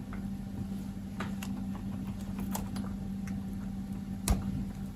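Insulated electrical wires being handled and tied together: scattered light clicks and rustles, with a sharper click about four seconds in, over a low steady hum.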